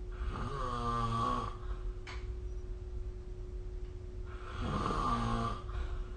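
A person snoring: two snores about four seconds apart, each a pitched, rattling breath lasting a little over a second, over a faint steady hum.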